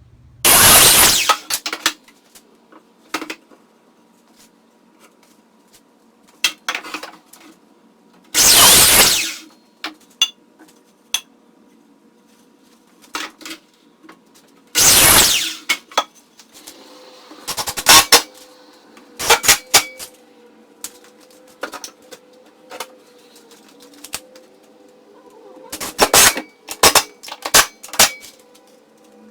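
Woodworking shop work: three loud, harsh bursts of about a second each, one near the start and two more some seconds apart, with clatter, taps and knocks of wood and tools between them.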